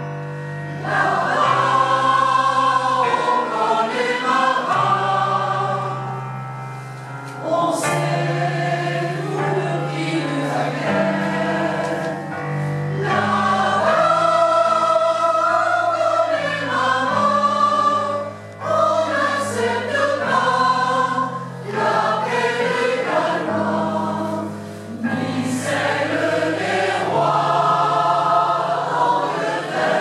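A mixed choir of women's and men's voices singing in parts in a stone church, in phrases with short pauses between them.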